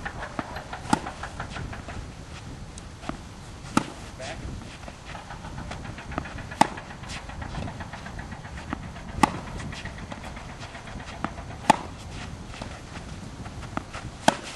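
Tennis balls struck with rackets in a rally: sharp hits about every two and a half to three seconds, with fainter knocks in between.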